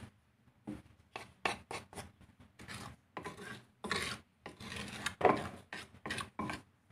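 A run of about fifteen short scraping or rasping strokes in quick, irregular succession.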